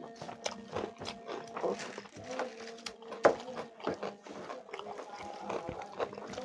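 A person chewing and lip-smacking while eating chicken curry with rice: an irregular run of wet mouth clicks and smacks, several a second, with one sharp smack about three seconds in.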